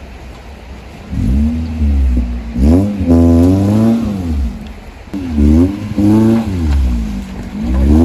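Off-road 4x4's engine revving up hard and easing off in repeated surges, about three times.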